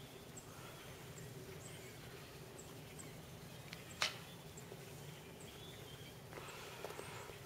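Quiet outdoor snow-day ambience with faint, high-pitched bird chirps about once a second. A single sharp click comes about halfway through.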